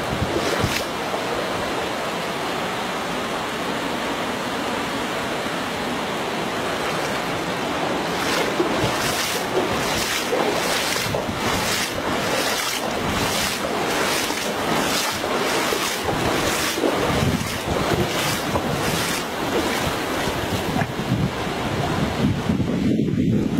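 Steady rush of flowing floodwater mixed with wind buffeting the microphone. Through the middle comes a regular run of short splashes, somewhat under two a second.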